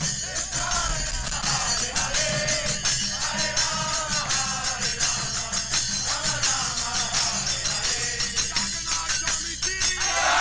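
Group of men singing a devotional kirtan chant to a steady beat on a mridanga drum, with bright metallic jingling from hand cymbals on the beat. At the very end the chanting rises into a loud group shout.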